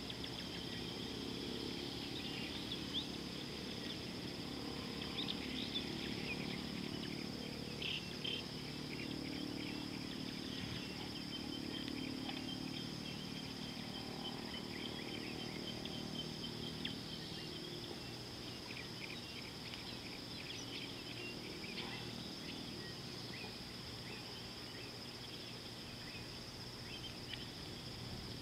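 Insects trilling steadily at a high pitch, with scattered short bird chirps and a low steady noise underneath.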